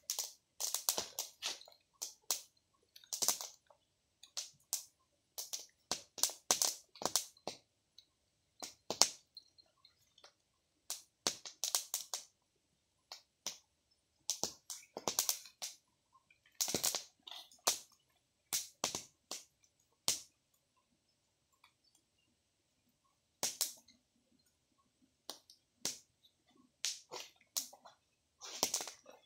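Open fire of dry leaves and wood crackling, with irregular sharp snaps and pops, sometimes in quick clusters, and short quiet gaps between them. Near the end there is rustling as someone steps over the dry leaves.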